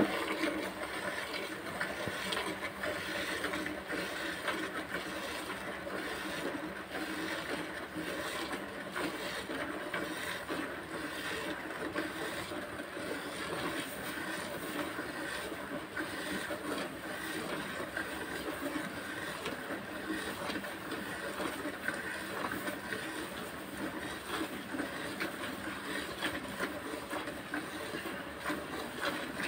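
Hand milking: milk squirting from the teats into a plastic bucket of frothy milk, a steady hissing with quick small pulses. A short sharp knock right at the start.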